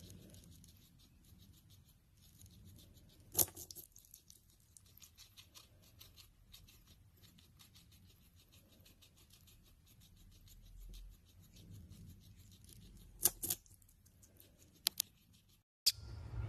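Hairless guinea pig biting and chewing a raw green vegetable: faint, quick crunching and gnawing, with sharper crunches about three seconds in and a few more near the end.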